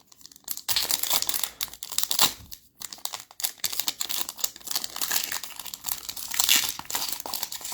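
Foil wrapper of a Panini Select basketball card pack crinkling and tearing as it is pulled open by hand, a dense run of crackles from a pack that resists opening.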